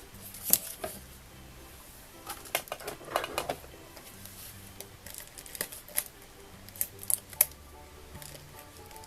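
Soft background music under sharp clicks and short rustles of card stock and craft tools being handled, busiest about two to three and a half seconds in.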